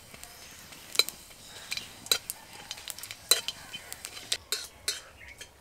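Panch phoron (five-spice seeds) frying in hot mustard oil in a kadai for a dal tempering, sizzling and crackling as it is stirred with a spatula. There are clinks against the pan, and three sharp clicks stand out at about one, two and three and a third seconds in.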